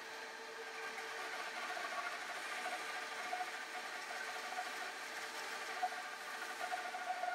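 Grizzly G0555XH 14-inch bandsaw running steadily with a wood slicer blade, resawing a wide cherry board, with a few faint clicks near the end.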